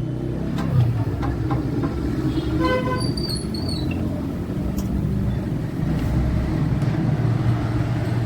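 Background street-traffic noise with a steady low rumble and a vehicle horn tooting briefly about three seconds in. A few light clicks come near the start.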